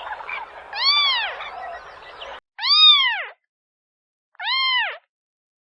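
A cat meowing three times, each meow rising then falling in pitch, about a second and a half to two seconds apart. A background hiss under the first meow cuts off abruptly just before the second.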